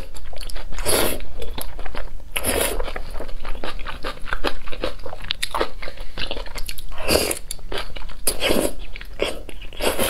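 A person slurping and chewing thick noodles in spicy sauce: a steady run of wet mouth smacks and clicks, broken by a few longer slurps.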